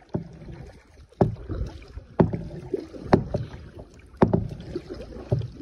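Kayak paddle strokes from double-bladed paddles, five short sharp hits about once a second as the blades dip into the water.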